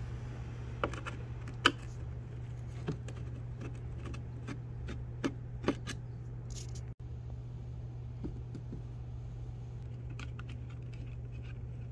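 Scattered small clicks and taps of a screwdriver and hands on screws and the plastic dash panel as a 4-inch dash speaker is unscrewed and a new one set in place, over a steady low hum.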